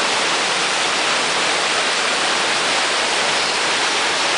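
Loud, steady rush of a waterfall: falling water sounding as an even, unbroken noise.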